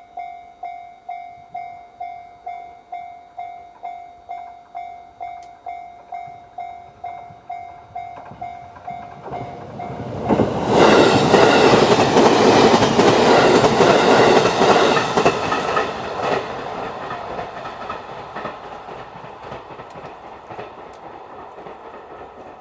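Japanese level crossing alarm sounding the standard JR electronic warning tone, about two dings a second. About ten seconds in, an E531 series electric train passes the crossing, loud for about six seconds, then fades away.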